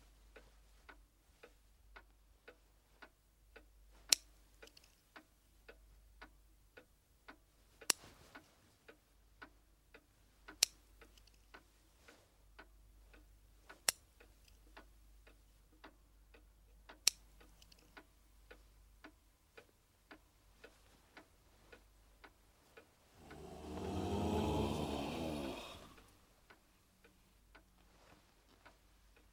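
Steady mechanical ticking, about two ticks a second, with a sharper, louder click every few seconds. Near the end a loud rushing noise swells up and fades over about three seconds.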